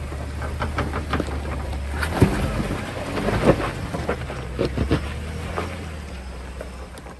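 Jeep Wrangler Rubicon engine running low and steady as the rig crawls up a sandstone ledge, under a run of crunches and scrapes from the tyres on rock and gravel, the sharpest about two and three and a half seconds in. The sound fades near the end.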